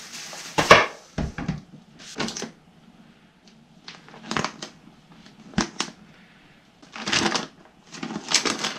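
Handling noises: a short rustle, then a series of sharp knocks and clicks, as the small ceramic space heater is picked up and set down by hand.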